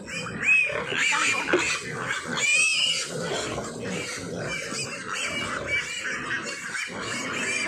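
Pigs squealing again and again, short rising-and-falling squeals from sows and piglets in their pen, hungry at feeding time.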